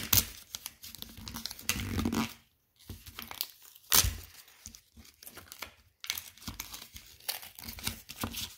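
A homemade paper card pack being torn open and crumpled by hand: irregular crinkling and tearing, with sharp rips near the start and about four seconds in.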